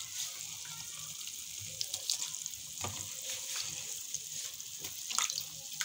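Dough cakes deep-frying in hot oil: a steady sizzle with scattered crackles and pops.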